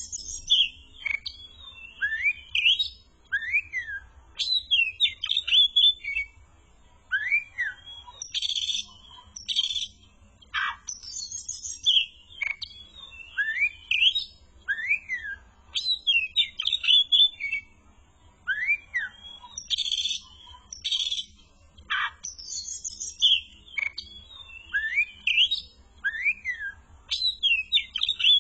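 Oriental magpie-robin (kacer) singing a busy, varied song of rising-and-falling whistled notes, quick downward sweeps and sharp high chatter. The same run of phrases comes round about every four seconds.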